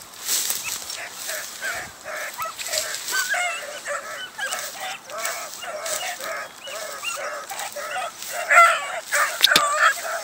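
A pack of beagles baying and yelping on a trail: many short, overlapping cries in quick succession, loudest near the end as the hounds give tongue together.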